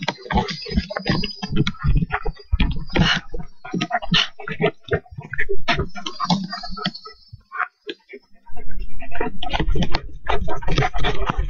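Footfalls of someone running, with knocking and rustling from a handheld camera jolted at each stride, in a quick irregular string of sharp knocks. From about eight and a half seconds a heavy low rumble of buffeting on the microphone joins in.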